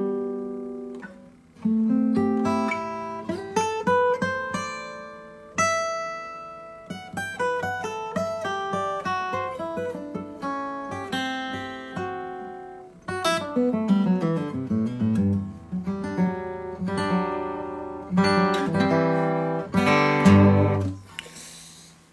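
Steel-string acoustic guitar played solo with the fingers: picked single notes and chords, a quick descending run of notes about halfway through, and a last chord that rings and fades away shortly before the end.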